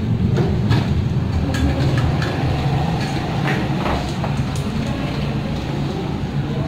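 A steady low rumble throughout, with scattered short clicks and knocks from a stainless steel dish, a pedal bin and a door handle being handled.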